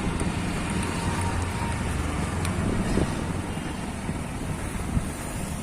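Steady outdoor background noise: wind on the microphone and a low rumble of traffic, with two faint knocks.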